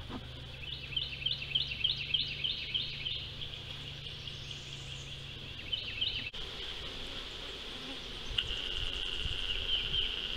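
Honeybees buzzing around a freshly installed hive, with a steady high-pitched drone throughout. In the first three seconds a quick run of repeated falling chirps, about three a second, rises over it, and a low hum cuts off suddenly a little after six seconds.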